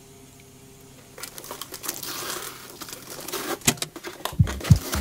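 Crinkling and rustling from a cardboard shipping box being handled, starting about a second in. Near the end a music beat with deep bass thumps comes in over it.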